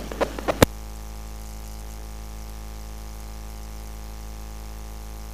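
A few brief sounds end in a sharp click in the first second, then a steady electrical-sounding buzz runs on unchanged at an even pitch.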